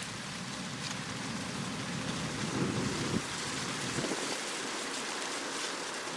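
John Deere 9650 STS combine running steadily while shelling corn: a continuous rushing hiss with a low rumble underneath that drops away about four seconds in.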